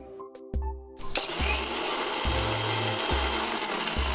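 Electric mixer grinder running at speed, grinding dry-roasted whole spices (coriander, cumin, fennel, cloves, cardamom) into powder. It starts about a second in and runs steadily from then on.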